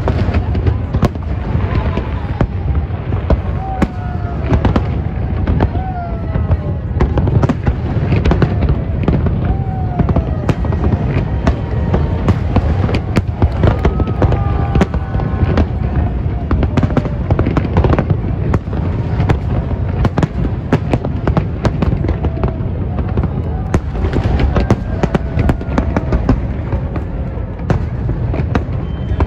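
Aerial fireworks display: a dense, continuous barrage of shell bursts, booms and crackles over a steady low rumble, with no pause.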